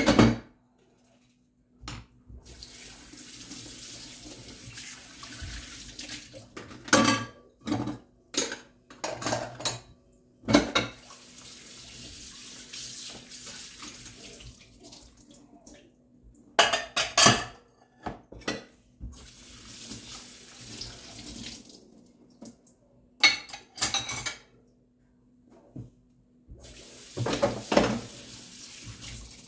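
Kitchen tap running in four spells of a few seconds each as utensils are rinsed in the sink, with sharp clinks and clatters of dishes and utensils between the spells, the clatters being the loudest sounds.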